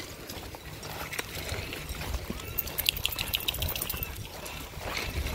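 Steps crunching and clattering over beach pebbles, with a quick run of sharp clicks about three seconds in.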